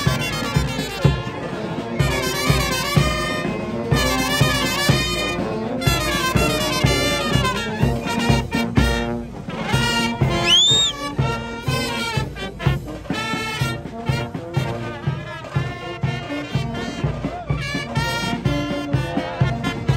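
A brass band plays a march, with trumpets, euphonium and tuba over a steady drum beat. A brief rising whistle sounds about halfway through.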